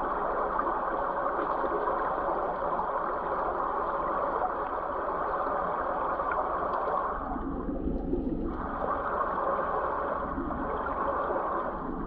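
River current rushing over a cobbled bed, picked up by a camera under the water: a steady wash of water noise. About seven seconds in it briefly turns lower before the usual wash returns.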